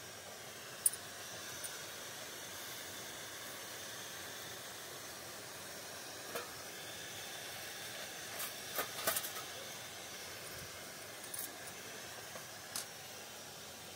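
Steady hiss of a steel pot of water steaming on a small gas-cylinder burner. Metal tongs clink against the pot rim a few times as leaf-wrapped eggs are lifted out, with the loudest clinks in a quick cluster just past halfway.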